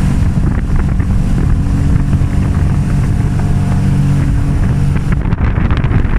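Jet ski engine running at speed with water rushing under the hull and wind on the microphone. About five seconds in, the engine's steady note fades into a rougher, gusting wind rumble.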